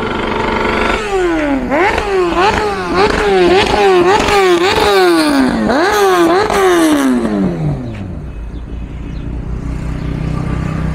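Motorcycle engine revved again and again, about twice a second, each rev climbing sharply and sinking back, then winding down in one long falling note about seven seconds in. A quieter steady rumble of traffic follows.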